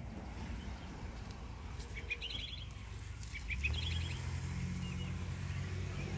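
A small bird calls twice in quick runs of high chirps, about two and three and a half seconds in. About three and a half seconds in, a low steady engine hum from road-construction machinery sets in and lasts to the end.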